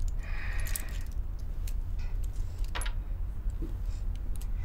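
Light metallic clicks and rattles from a small brass injector gun being handled, with a short rasp about a second in and a sharp click near the end, over a steady low rumble.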